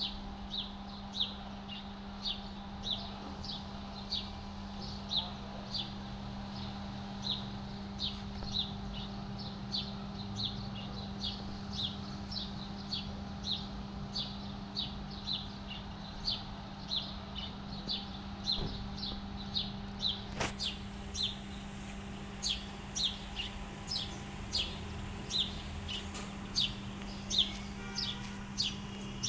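A small bird chirping over and over, short falling chirps about one or two a second, over a steady low hum.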